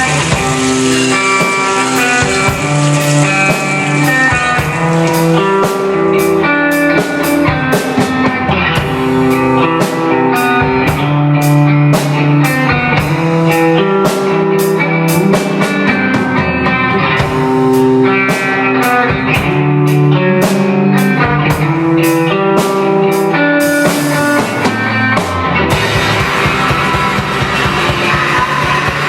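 Instrumental passage of a rock song: guitars playing a melodic riff of held notes over a steadily beating drum kit, with no vocals. Near the end the sound thickens into a denser, noisier wash.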